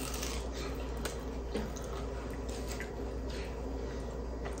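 Chewing of crispy, slightly burnt thin-crust pizza, picked up close, with faint crunches and wet mouth sounds about once a second over a steady low hum.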